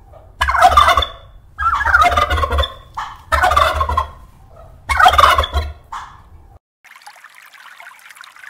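Tom turkey gobbling four times, each gobble lasting about a second. About two-thirds of the way through the sound cuts to a faint steady hiss.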